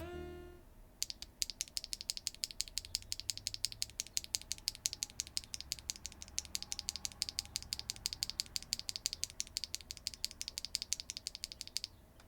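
HMX Cream Latte linear mechanical keyboard switch being pressed and released over and over in a rapid run of about six to seven sharp clicks a second. The clicks start about a second in and stop near the end.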